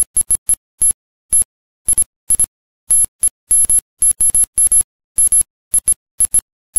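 Rapid, uneven series of short, high-pitched electronic beeps, about three to four a second, with dead silence between them.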